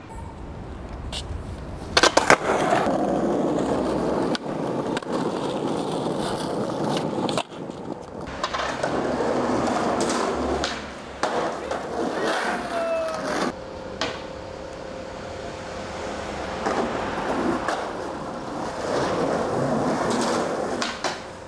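Skateboard wheels rolling over hard pavement in long runs, broken by sharp clacks of the board, the loudest about two seconds in.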